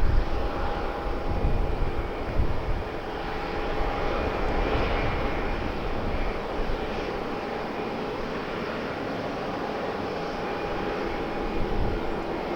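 Aircraft engines running steadily, with a steady whine over the noise. Wind gusts buffet the microphone underneath.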